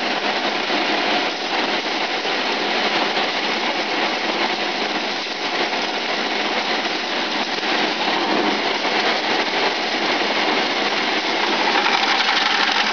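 Groundnut (peanut) sheller running with a steady, dense mechanical noise as peanuts in the pod are fed into its hopper and shelled.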